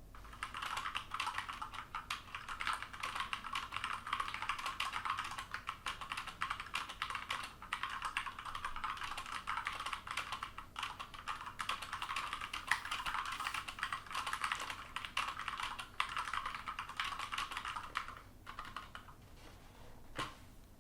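Fast typing on an Akko 3068 mechanical keyboard with Cherry MX Brown switches: a dense run of keystrokes that thins out near the end, with one last keypress just before the end.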